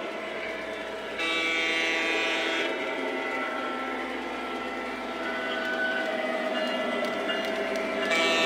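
Lionel O-gauge model train running with its electronic sound system on: a steady running sound, with a long horn-like signal blast from about one to nearly three seconds in and another starting near the end.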